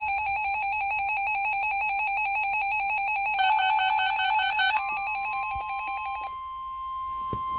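Weather alert radio alarm: a rapid pulsed electronic beeping, with a second, higher beep pattern joining for a second or so in the middle. About five seconds in, a steady single-pitch tone starts and carries on alone once the beeping stops. It is the weather radio warning alarm tone that comes before a severe thunderstorm warning broadcast.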